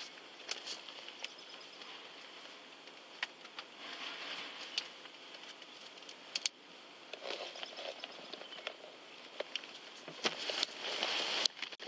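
Handling noise inside a car's cabin: paper rustling with scattered small clicks and taps, and a louder stretch of rustling near the end.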